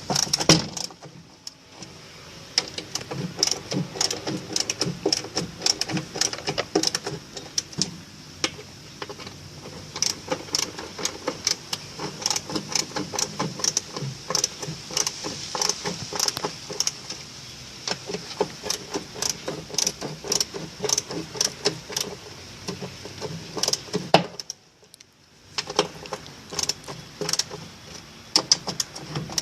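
Ratchet wrench with a 12 mm socket clicking in rapid runs as nuts are turned down on a washing machine's motor base, with short pauses about a second in and again near the end.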